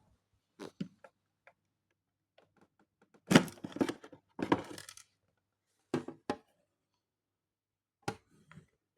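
Electrolux Trilobite robot vacuum, its suction off, making scattered clicks and knocks. A denser stretch of clattering comes about three to five seconds in, and single knocks follow near six and eight seconds.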